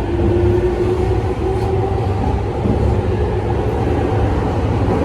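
Rinkai Line 70-000 series train's Mitsubishi IGBT-VVVF inverter and traction motors whining under a steady rumble of wheels on rail, heard from inside the car. The whine rises slowly in pitch for about the first two seconds, then levels off and fades. This set is labelled an odd-sounding, noisy unit.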